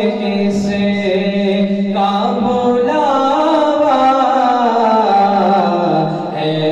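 A man singing a naat solo into a microphone, in long held notes that bend and ornament the melody.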